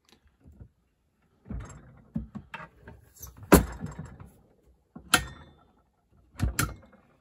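Wooden display cabinet handled by hand, its doors opened with a series of wooden knocks and clatters, the loudest about three and a half seconds in.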